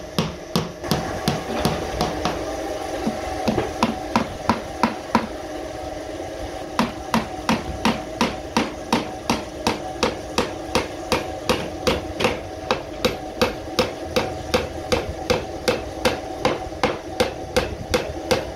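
A hand hammer strikes a laminated wooden furniture panel in a steady run of blows, about two to three a second, with a brief pause about five seconds in.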